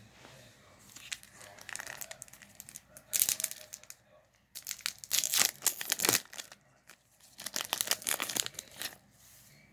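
Trading-card booster pack wrapper crinkling and being torn open, in four bursts of crackling.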